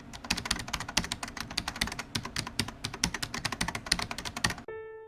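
Rapid typing on a computer keyboard, a dense irregular run of key clicks that stops shortly before the end. A soft piano note starts just as the typing ends.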